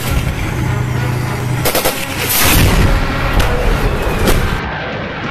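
Gunfire: several sharp rifle shots, with a heavier, longer blast about two and a half seconds in. A steady low hum runs under the first shots.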